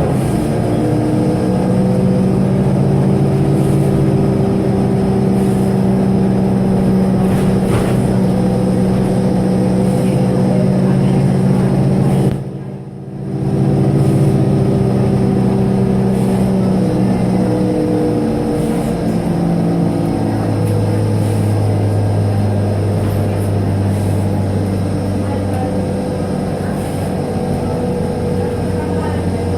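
Scania L94UB city bus engine running steadily, its note dropping lower about two-thirds of the way through, with short hisses of compressed air being released from the air system at intervals.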